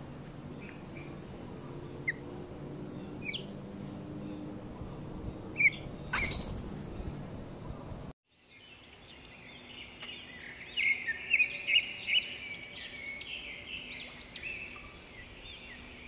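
Birds chirping: a few short calls over a steady outdoor hum, with one loud rising call about six seconds in. The sound cuts off abruptly, and after a moment of silence dense, rapid chirping fills the rest.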